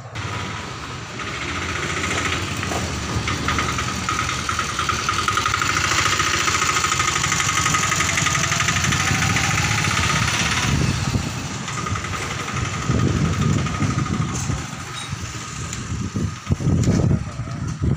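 Street traffic with motorcycle engines running close by. The noise swells for several seconds and eases about eleven seconds in, with rougher low engine rumble near the end.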